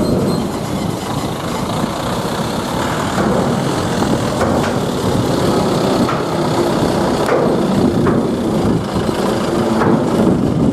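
Diesel engines of buses and trucks running at close range, a steady heavy rumble with a few faint clicks.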